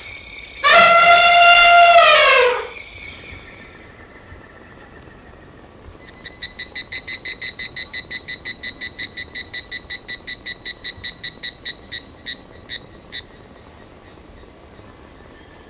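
Outdoor animal calls at night: a loud pitched call of about two seconds that drops in pitch at its end, then a few seconds later a rapid high chirping trill of about five chirps a second that slows into three separate chirps before stopping.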